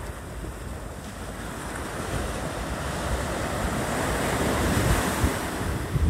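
Atlantic Ocean surf breaking and washing up the beach, the hiss of the wash swelling toward the end. Wind rumbles on the microphone underneath.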